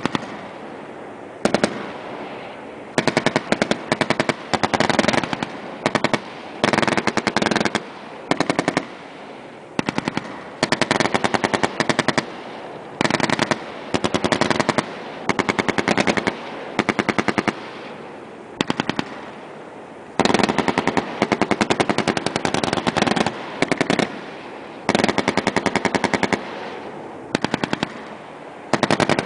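M240B 7.62 mm machine gun firing one short burst after another, each from a fraction of a second to about a second of rapid shots, with echo rolling away in the gaps between bursts.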